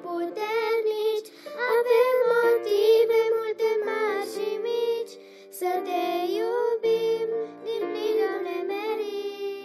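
Two young girls singing together into handheld microphones over an instrumental accompaniment, holding long sung notes.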